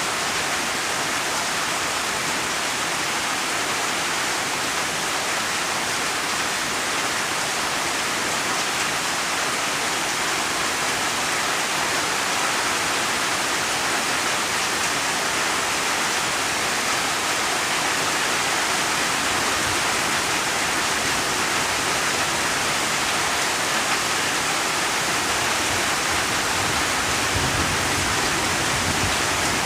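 Steady rain, an even unbroken hiss of falling drops, with a brief low rumble near the end.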